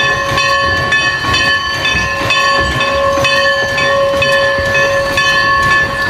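Steam locomotive's bell ringing over and over, its strokes blending into a steady, multi-pitched ring above a noisy low rumble from the engine.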